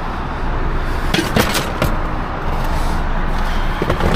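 Steady low rumble of a motor vehicle, with a cluster of sharp clicks and knocks about a second in and another near the end.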